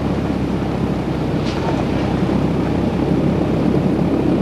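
Wright R-3350 radial piston engines of a Lockheed L-1049H Super Constellation running steadily, heard from inside the passenger cabin as the propellers turn beside the window.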